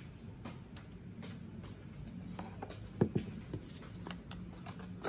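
Small handling sounds of a cleanser bottle: a fingernail scratching and peeling at a sticker label, with light clicks, then a sharper knock about three seconds in as the bottle is set down on a wooden desk. A low steady hum runs underneath.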